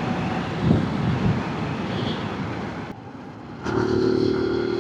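Zontes 125 Scrambler X motorcycle being ridden, with wind and road noise over the single-cylinder engine. After a short dip about three seconds in, the engine's steady drone comes up strongly.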